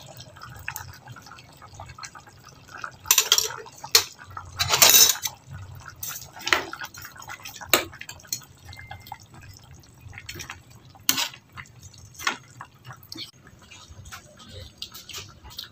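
A metal spoon stirring a simmering chicken stew in a wide metal pan: scattered short scrapes and clinks against the pan, with the sauce sloshing in between.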